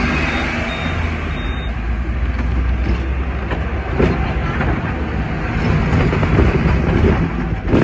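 Hong Kong double-decker tram running along its street track, heard on board: a steady rumble of wheels on the rails and running gear, with a couple of sharp clacks about four seconds in and near the end.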